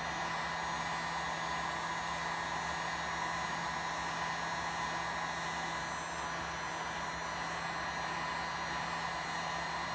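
Heat gun running steadily on its low setting: a constant rush of blown air with a steady hum under it. It is heating a MacBook Pro's AMD graphics chip to reflow the solder beneath it.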